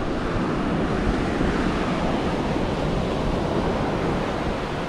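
Ocean surf washing onto the beach in a steady rush, with wind buffeting the microphone; it eases slightly near the end.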